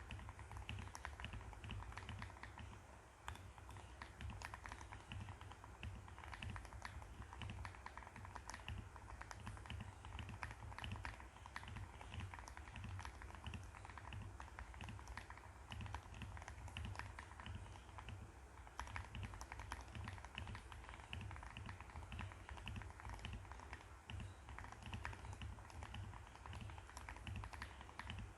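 Akko ACR Pro 75 acrylic-cased mechanical keyboard being typed on continuously: a fast, irregular stream of key clacks. A faint low hum sits underneath.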